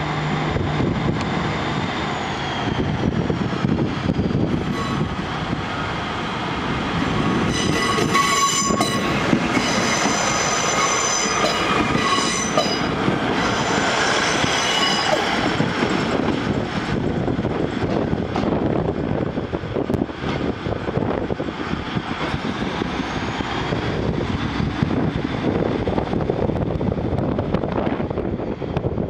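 Northern Class 150 Sprinter diesel multiple unit running past along the platform, its engine and wheels rumbling steadily. From about 8 to 15 seconds in, a high-pitched squeal comes and goes.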